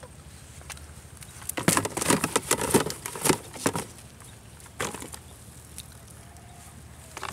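Freshly caught fish flapping and slapping as they are picked out of a cast net: a burst of quick wet slaps for about two seconds, a short flurry about five seconds in, and another near the end.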